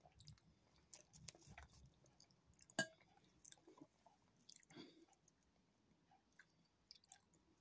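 Faint chewing of a soft sausage, with small wet mouth sounds and a few soft clicks. A sharper click stands out about three seconds in.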